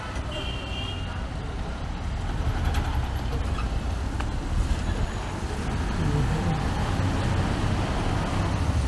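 Street traffic: a steady low rumble of passing vehicles, with a short high horn beep just after the start.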